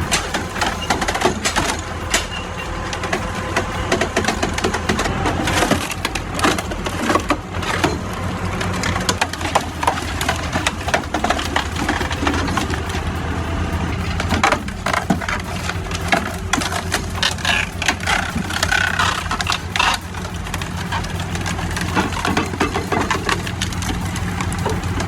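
Firewood splitter at work: a steady low hum from its power unit under repeated sharp cracking and splintering as logs are split apart. The hum drops back somewhat about halfway through.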